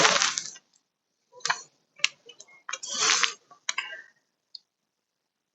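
Small metal screws clicking and clinking as they are handled and started by hand into the bottom of a car door panel: a handful of separate light clicks and a short scrape near the middle, then quiet.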